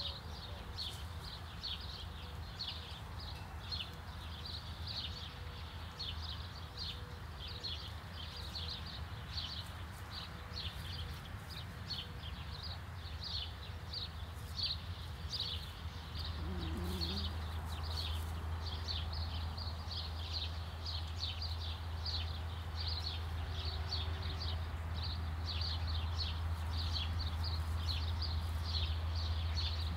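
Outdoor ambience: a high, rapid chirping repeats several times a second throughout, over a low steady rumble that grows louder about halfway through. A hen gives a short low cluck a little past the middle.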